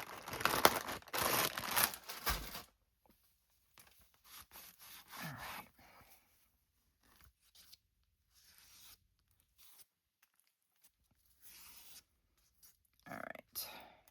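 Crinkling and rustling of a wet wipe being handled and rubbed over a glue-smeared craft mat, loud for the first two to three seconds, then scattered quieter rubbing and small handling noises.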